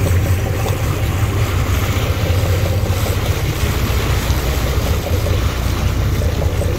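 Offshore fishing boat's engine running steadily, with wind on the microphone and the wash of water around the hull.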